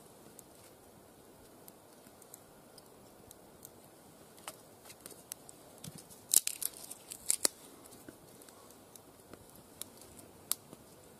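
Thin dry kindling sticks being split along the grain and handled: scattered small woody clicks, with a cluster of louder sharp cracks about six to seven and a half seconds in.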